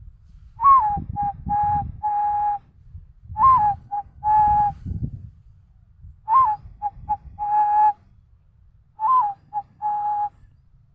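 A person imitating the cooing call of a zebra dove (perkutut) by mouth, in four phrases. Each phrase opens with a short note that rises and falls, followed by one or two short clipped notes and a longer held note.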